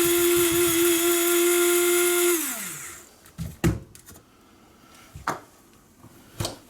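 Electric coffee grinder running at a steady pitch as it grinds dead bees into powder, then switched off and spinning down with a falling pitch about two and a half seconds in. A few short knocks follow.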